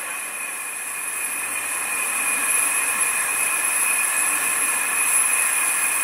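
Climax geared steam locomotive standing at rest and hissing steadily, with steam leaking from around its cylinders.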